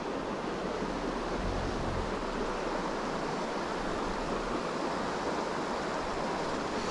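Small creek running over rocks and gravel, a steady rush of water.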